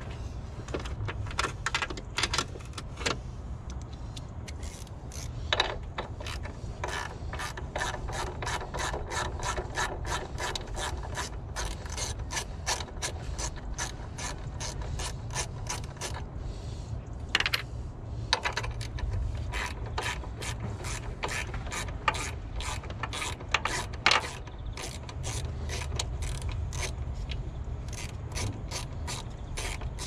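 Hand ratchet clicking in rapid runs as screws are backed out. There are a few louder clacks and a short pause about halfway.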